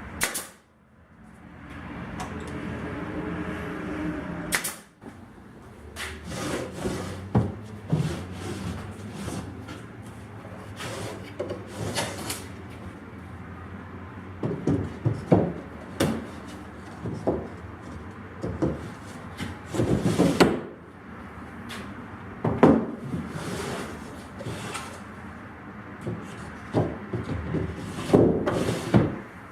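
Plywood drawers sliding open and shut in their dado grooves, with a run of wooden knocks and clacks as they bump home.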